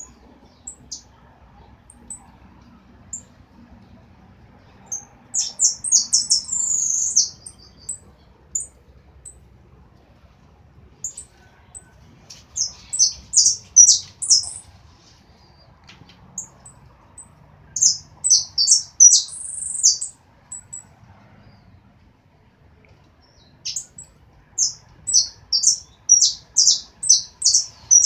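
A caged saffron finch (jilguero dorado) singing in four short bouts of quick, high, repeated chirping notes, with pauses of several seconds between them.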